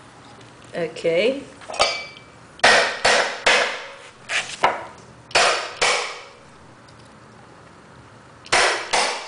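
Hammer blows on a chisel held upright against the edge of a parquet strip, cutting away its tongue so the strip can drop back into place: about ten sharp knocks in quick groups of two or three, then a pause of about two seconds before two final knocks.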